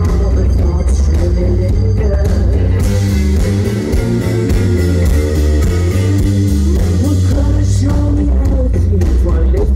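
Live rock band playing loud, with electric guitars, heavy bass and drums, and a man singing into a microphone.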